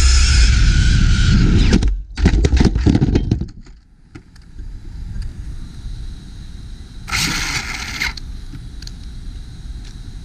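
Losi Baja Rey RC truck running fast on pavement, its drivetrain and tyres loud and steady. About two seconds in, a rapid clatter of knocks and scrapes as the truck crashes and tumbles. Then a lower, steady noise, broken about seven seconds in by a second-long hissing burst.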